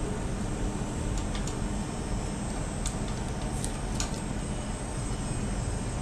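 Steady hum and air noise from the equipment in a CT scanner room, with a few faint light clicks.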